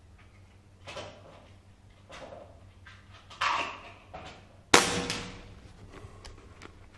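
A single shot from a BSA Scorpion SE .22 pre-charged pneumatic air rifle with a shrouded barrel: one sharp crack nearly five seconds in that dies away quickly. A few softer rustling and handling sounds come before it.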